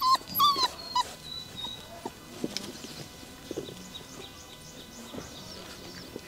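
Rottweiler puppy whimpering: a quick run of short, high whines, each falling in pitch, in the first second. After that it goes quieter, with only faint whines.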